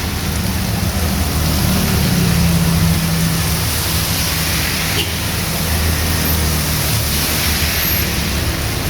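Heavy rain falling in a steady loud hiss, with a low rumble underneath.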